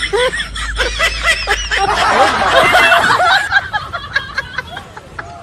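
Laughter, lasting about three and a half seconds before dying away.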